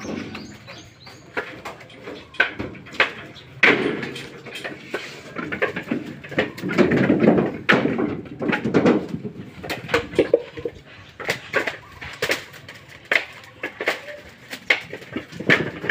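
Husked coconuts knocking and thudding as they are tossed by hand into woven bamboo baskets and against one another, in a quick, irregular run of knocks.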